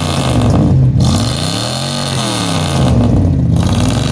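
A 289 small-block Ford V8 revved up and let fall back repeatedly through its exhaust, its pitch climbing and dropping about once every two seconds, for an exhaust-sound judging.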